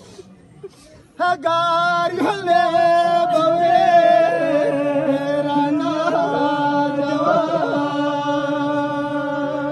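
A voice chanting a Balti marsiya, a mourning elegy, in long held notes with a slow waver in pitch. It comes in loudly about a second in, after a short quiet pause.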